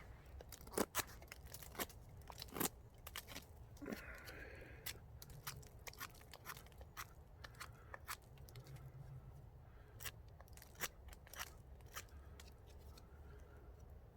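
Irregular sharp clicks, snaps and crunches of sticks and gear being handled while a tarp is pitched and pegged with wooden pegs.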